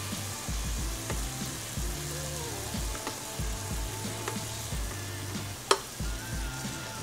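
Small donuts frying in a little pan of hot oil: a steady sizzle as they are lifted out with a chopstick. A single sharp click near the end, over a low beat of background music.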